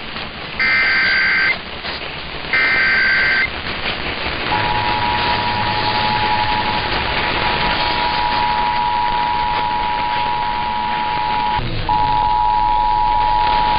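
Emergency Alert System test tones over radio hiss: the end of the digital SAME header, two more short bursts of buzzing data tones about a second apart, then the two-tone EAS attention signal, a steady dual tone that starts about four and a half seconds in, drops out briefly near the end and resumes.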